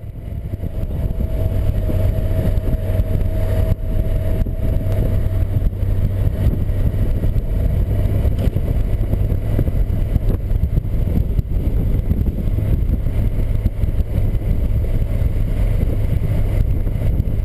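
1983 Yamaha XVZ12TK Venture's V4 engine running steadily as the motorcycle cruises down a paved road, heard from a camera mounted on the bike with a heavy, even low rumble. The sound fades in over the first second.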